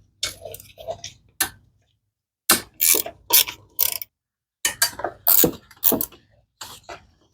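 Hand socket ratchet clicking in three bunches of short strokes with pauses between, loosening the bolts of a small ATV's front sprocket cover.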